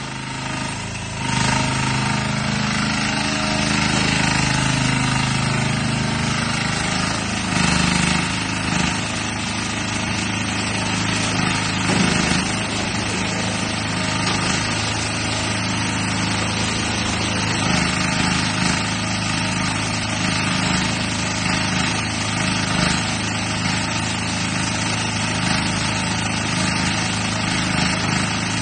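Mini excavator's engine running steadily while the machine digs. It gets louder about a second in, and its pitch and level shift a little now and then.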